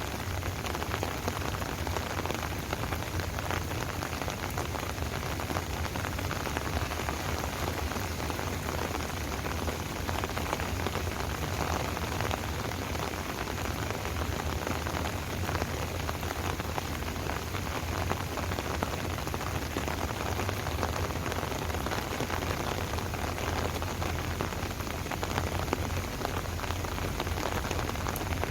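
Steady rain falling, an even hiss of many small raindrops.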